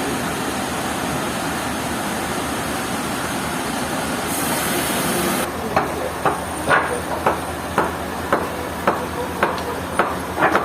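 Steady machinery noise, with a short high hiss about four seconds in; from about halfway, a run of sharp, evenly spaced knocks, about two a second, like hammer blows.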